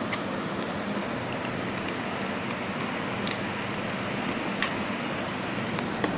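Scattered light ticks and clicks of a screwdriver turning the battery-cover screw on the back of a plastic digital clamp meter, the sharpest click about four and a half seconds in, over a steady background hum.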